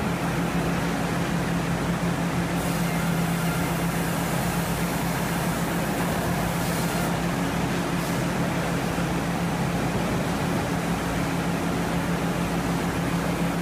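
Hurdle resaw running steadily as it saws a cant into boards, a constant machine hum with a steady low tone under the noise of the cut. A brighter hiss comes in at about two and a half seconds and fades out around seven seconds.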